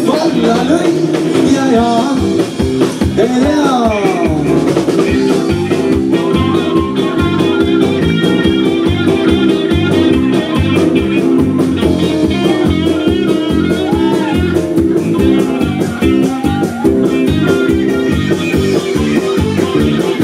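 Live rock band playing: electric guitars, bass guitar and drum kit, with a sung line that slides up and down in pitch during the first few seconds, then an instrumental stretch.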